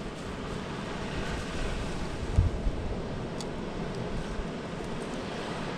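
Steady rush of waves and wind on the microphone, with a low buffet of wind about two and a half seconds in.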